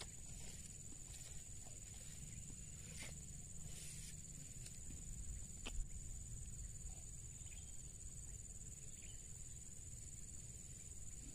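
Faint outdoor ambience: a steady high insect drone over a low rumble of wind on the microphone, with a few soft clicks about three and six seconds in.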